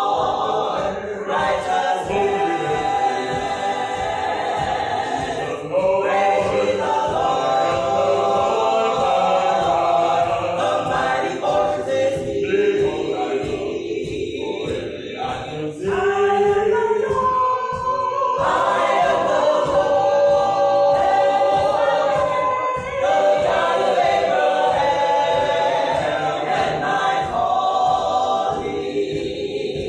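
Gospel choir singing a cappella, with many voices in harmony and the phrases changing every few seconds.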